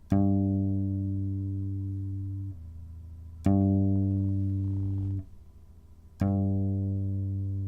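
Guitar note sounded by a hammer-on, a finger hammered onto the fretted string, three times. Each note rings for about two and a half seconds and then drops away.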